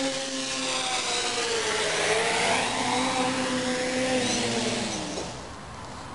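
Electric multirotor copter's motors and propellers humming, the pitch wavering and dipping as it flies, then fading away about five seconds in.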